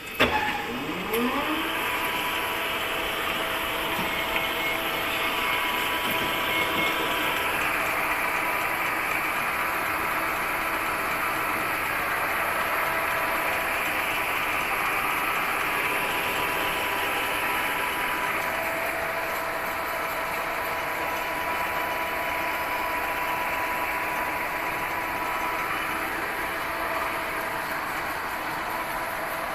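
A 1970 Waken-Maro 8-A engine lathe starts with a click and a rising whine as it spins up, then runs steadily with a continuous mechanical whine and hum from its gearing.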